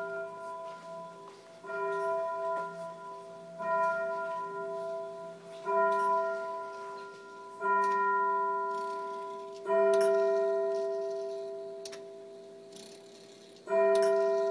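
Schulmerich Stelar carillon sounding one bell note over and over, struck about every two seconds, each strike ringing out and fading away. The strikes grow louder one after another, and the last comes after a longer pause.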